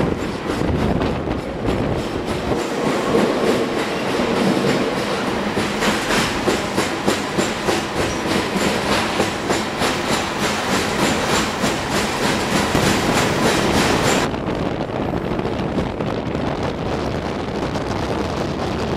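Passenger train running on steel rails, its wheels clicking rapidly and evenly over the track. The noise is loud and harsh while the train is inside a tunnel, then suddenly softens about fourteen seconds in as the car comes out into the open.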